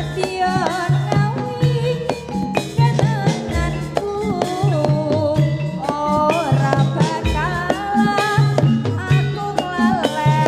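Live jaranan music from a Javanese ensemble: sharp drum strokes and low pitched beats keep a busy rhythm under a wavering, sliding high melody line.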